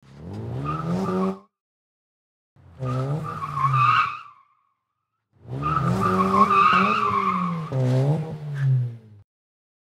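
Car tyres squealing in three separate bursts, the last and longest running about four seconds, with the pitch wavering up and down through each squeal.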